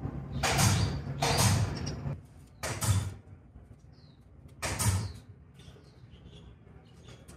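Footsteps on wooden deck boards: four uneven steps, each a dull thud with a creak, within the first five seconds.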